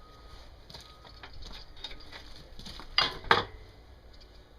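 Metal clinks and knocks from hand tools working on a Seagull outboard's driveshaft, with two louder sharp knocks a little after halfway.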